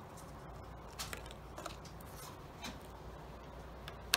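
Light clicks and taps of flat souvenir cards being handled and set down on a table, with a sharper click near the end, over a steady low hum.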